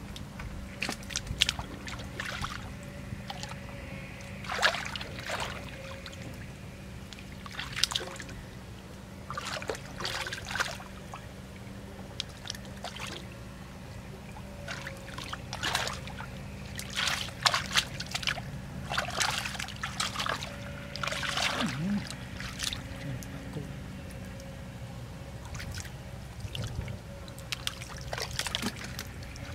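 Muddy water splashing and sloshing in irregular short bursts as hands grope and feet wade through a shallow pool, over a faint steady hum.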